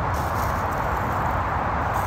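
A steady outdoor hum and hiss, with faint rustling of dry leaves as a dog on a leash sniffs and steps through the leaf litter.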